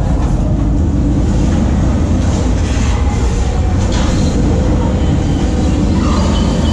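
Avatar Flight of Passage flight-simulator ride's sound effects: a loud, steady rumbling rush of flight as the ride skims low over water.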